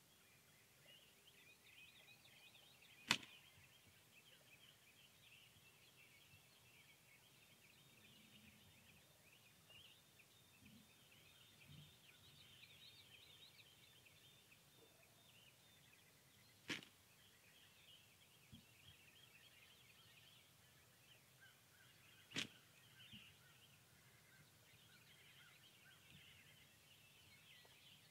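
Quiet outdoor field ambience: a faint, high-pitched chirring runs throughout, broken by three sharp clicks, the first about three seconds in and the loudest, then two more about 17 and 22 seconds in.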